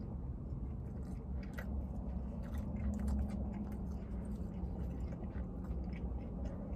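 A person chewing a mouthful of vegan burger with the mouth closed: small, irregular wet clicks and smacks, over a low steady hum.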